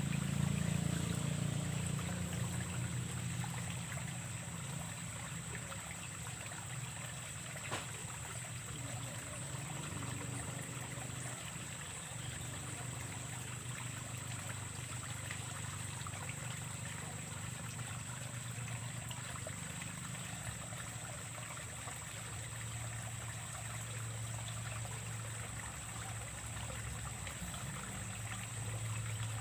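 Steady trickle of flowing ditch water, with a continuous high-pitched whine and a low hum underneath.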